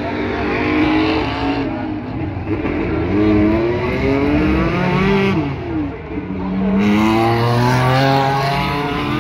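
Superstock race cars' V8 engines running hard on a speedway oval, several cars passing close by, their pitch rising and falling as they go past.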